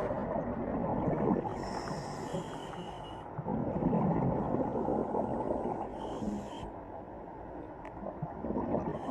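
Strange underwater-sounding rumble that swells and fades in surges, heaviest in the low end, with short patches of high steady tones about two seconds in, around six seconds in and near the end. It is the kind of strange sound some people claim are human voices.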